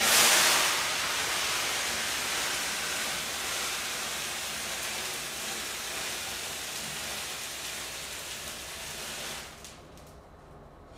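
A grease fire in a frying pan flares up suddenly into a fireball, loudest at the onset. The flames then keep burning with a steady rushing hiss that slowly weakens and drops away about nine and a half seconds in.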